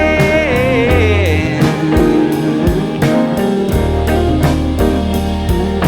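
Rock song with guitar and a steady drum beat; a held sung note wavers and fades out in the first second and a half, then the band plays on without vocals.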